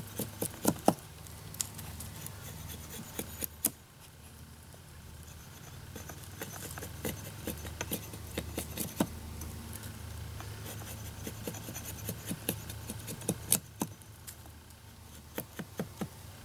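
Axe head held in the hand shaving and cutting wood from the end of a handle blank: irregular scraping strokes and sharp ticks as the blade bites into the wood. A steady low hum runs underneath.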